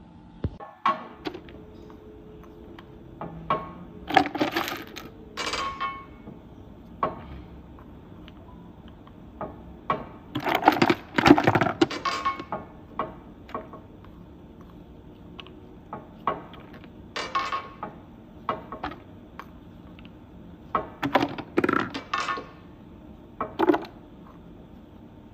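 Hardened steel bearing balls and plastic spacers clinking and clattering in irregular bursts as they are handled and fed into a slewing ring bearing's raceway through its loading hole.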